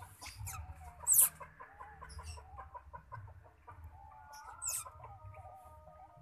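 Newborn otter pups squeaking: a rapid run of short chirps, broken by loud shrill squeals about a second in and again near the end.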